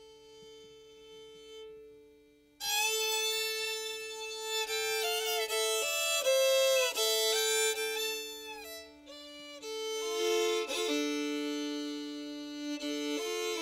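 Background music: a melody of long held notes over a steady lower drone note. It starts soft and comes in much louder about two and a half seconds in.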